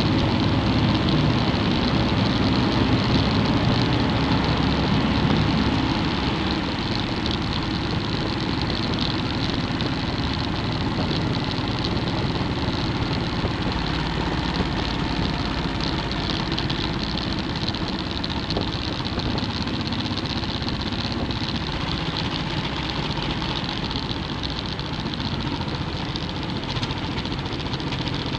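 Motorcycle engine running steadily while riding, mixed with steady wind and road noise. It is a little louder for the first six seconds or so, while still inside a rock road tunnel.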